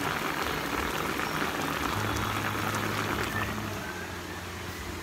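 Fish broth of vinegar and water at a rolling boil in a metal pan: steady bubbling and popping, over a low steady hum, a little quieter near the end.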